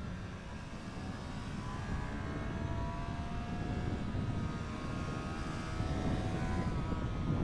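Triumph Street Triple 765 RS inline-three engine pulling under throttle, its pitch climbing slowly for several seconds before changing near the end, over a dense low rumble of wind noise.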